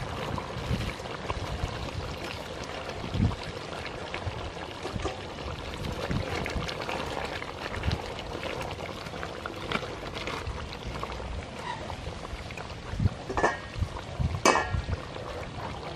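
Chicken curry bubbling and simmering in a pot, with a few knocks against the pot, about three seconds in and twice near the end.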